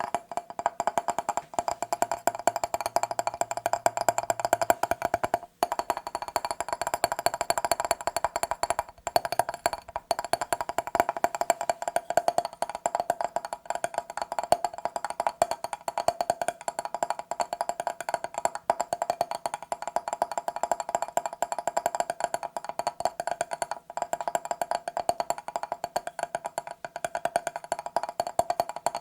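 Rapid, continuous tapping on a mirror's glass, many taps a second with a faint ringing under them, broken by a couple of short pauses.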